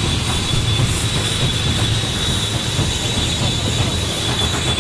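Motor running steadily with a high, even whine over a low rumble.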